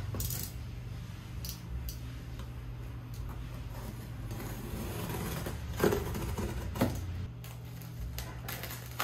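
A cardboard shipping box being opened by hand: a box cutter slicing the packing tape, cardboard flaps scraping and rubbing, and a series of short clicks and knocks, the two loudest about six and seven seconds in. Near the end a clear plastic bag crinkles as the cutter is put to it.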